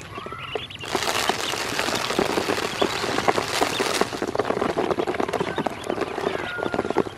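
Dry duckling feed poured into a plastic basin, a loud rattling hiss of grains from about a second in to about four seconds in. After that, ducklings peck at the feed on the plastic floor: rapid, irregular taps, with a few duckling peeps near the end.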